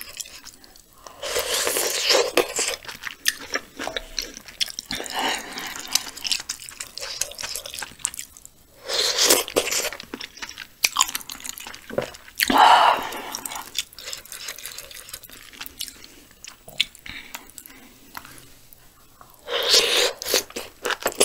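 Close-miked eating: wet chewing and mouth sounds from a person eating spicy braised chicken stew with intestines, with four louder bursts as spoonfuls of food and sauce go into the mouth.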